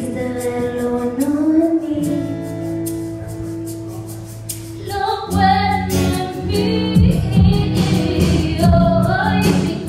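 A woman singing live into a microphone with band accompaniment: long held notes over sustained chords, with the accompaniment filling out into a steady beat about two-thirds of the way through.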